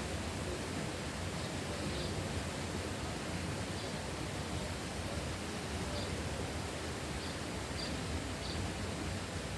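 Steady, even rushing noise of a rural outdoor ambience, with several faint, short, high bird chirps scattered through it.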